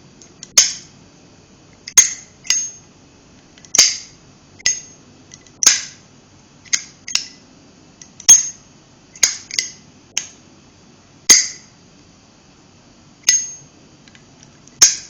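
Zippo Armor lighter with a high-polish brushed case, its lid flicked open and snapped shut over and over: sharp metallic clicks about once a second, some in quick pairs. The hinge has been knocked out of line by repeated drops.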